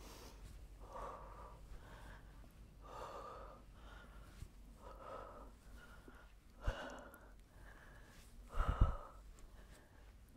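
A woman breathing out hard in time with repeated crunches, one forceful exhale about every two seconds. Two short low thumps come near the middle and near the end, the second the loudest sound.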